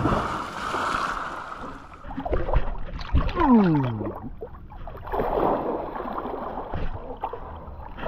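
A person jumping into lake water: a splash right at the start, then churning and sloshing water. Water slaps and gurgles around a camera held at the surface as people swim and wade through it.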